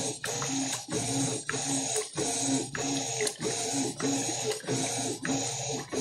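Top-loading Electrolux 12 kg washing machine in its wash cycle: the agitator churns the load back and forth through the water with a motor hum, in an even rhythm of a little under two strokes a second.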